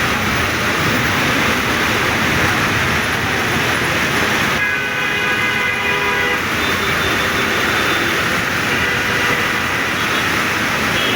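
Heavy rain pouring down steadily. A brief pitched sound with several tones rises over it about five seconds in.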